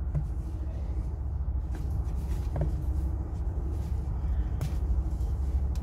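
Steady low background rumble, with a few faint clicks from the cable being handled.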